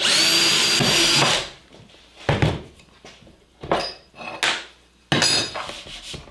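Cordless drill spinning at speed for about a second and a half, drilling a pilot hole into an MDF board for a rail screw, with a steady high whine. Then several separate clunks and clatters as the drill is set down and the aluminium rail parts are handled on the workbench.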